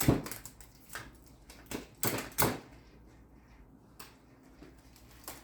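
Several short clicks and knocks of small items being handled and set down, bunched in the first two and a half seconds, then only faint handling noise.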